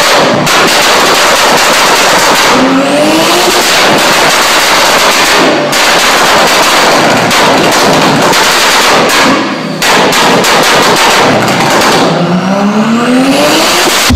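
BMW E30's engine at full throttle on a chassis dyno, the revs rising in long pulls with a few brief breaks. Its exhaust crackles and bangs rapidly while it shoots flames.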